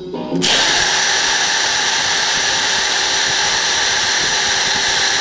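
Electric drill starting up about half a second in and running at a steady high speed, drilling a pilot hole into the wood block.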